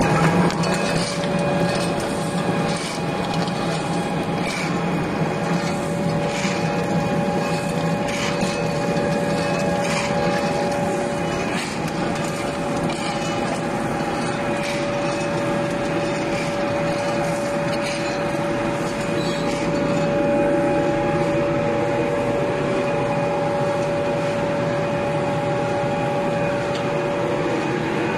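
Wood-processing machinery for pellet making running steadily: a constant motor hum and whine with scattered sharp cracks of wood being broken up, more of them in the first half.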